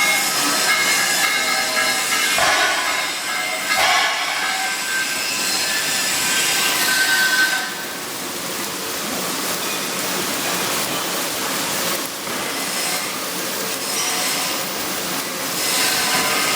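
Arc welding on carbon steel pipe: a steady hissing arc with irregular crackle.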